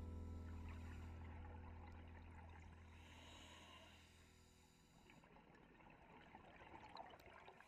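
Sustained low notes of a music track fading out over the first few seconds, then faint bubbling and hiss of a scuba diver breathing through a regulator underwater.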